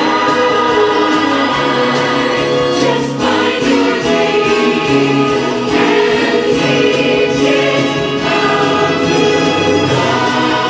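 Stage-show finale song: a full ensemble singing in chorus over orchestral music, steady and loud throughout.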